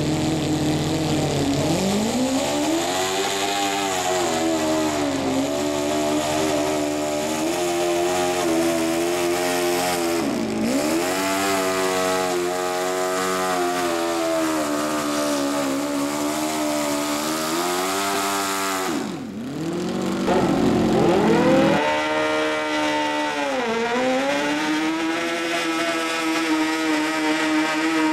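Modified riding lawn mower engine running hard at high revs while it drags a weight-transfer pulling sled, its pitch rising and sagging as it works against the load, with sharp drops in revs about a third and two-thirds of the way through. Near the end a second modified mower's engine is heard revving hard on its pull.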